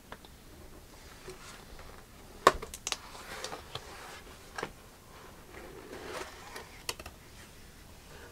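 Cardboard box being handled and opened on a tabletop: the lid and flaps scrape and rustle, with sharp knocks and taps as the box is tipped and set down, the loudest about two and a half seconds in.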